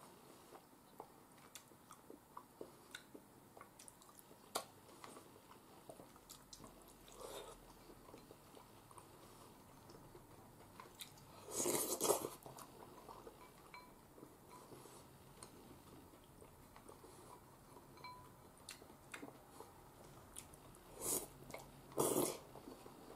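A person eating cream stew from a porcelain bowl with chopsticks: quiet chewing and small mouth clicks. There is a louder slurp about twelve seconds in and two more near the end, as the stew is pushed from the bowl rim into the mouth.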